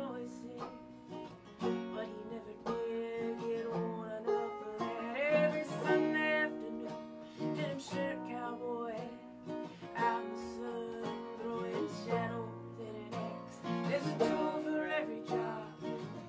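Live acoustic folk music: an acoustic guitar strummed and a banjo picked, with sung vocals wavering through parts of the passage.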